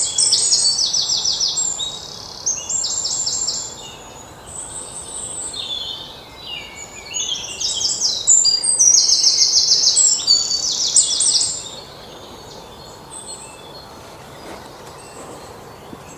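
Bird song: high, rapid trilled phrases repeated in loud bouts, strongest in the first four seconds and again from about seven to eleven seconds in, then dying down to faint background calls for the last few seconds.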